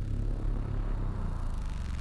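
Background music with a deep, sustained bass.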